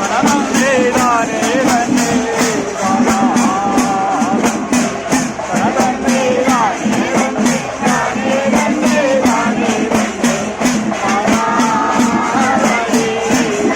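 Kerala temple ritual music on udukku hourglass drums, with a steady beat of sharp metallic strokes about three a second and a wavering melodic line over it.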